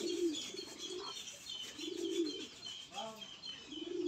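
Pigeons cooing, low rounded coos about every two seconds, over quick, steady high chirping of small birds.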